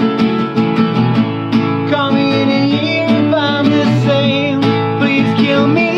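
Steadily strummed acoustic guitar, with a man's singing voice coming in about two seconds in.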